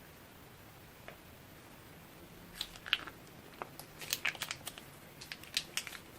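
Slime play with plastic piping bags: a single small click, then a quick run of sharp crinkly clicks and crackles starting about two and a half seconds in.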